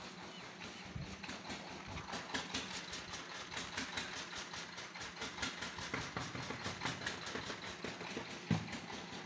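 Footsteps on a welded steel staircase: a quick, uneven clatter of light knocks from feet on the steel treads, with one heavier knock near the end.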